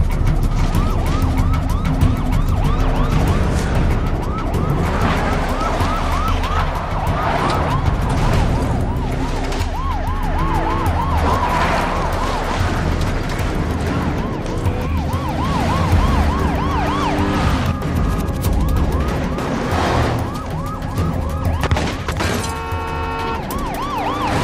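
Police car sirens yelping, rising and falling a few times a second, over a steady rumble of car engines.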